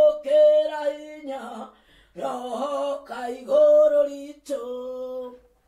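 A woman singing alone, unaccompanied, in slow, long-held notes, with short breaks between phrases.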